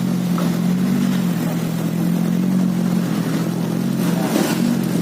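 Mini excavator's diesel engine running at a steady pitch, a constant hum with no breaks.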